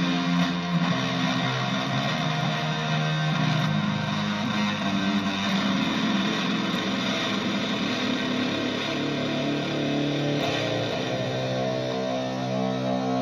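Gibson Les Paul Tribute electric guitar played through effects pedals into a Vox AC15 tube amp. It plays long, ringing chords that change every few seconds.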